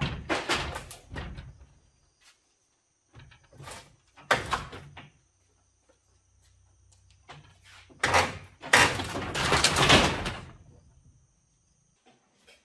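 Scraping and clattering of building work in three bursts: a short one at the start, another about four seconds in, and the longest and loudest about eight seconds in.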